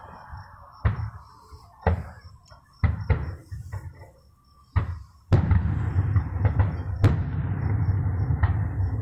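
Aerial fireworks shells bursting: several separate booming bangs with rumbling tails in the first five seconds. From about five seconds in, the bangs come thick and run together into a continuous rumble with sharp cracks.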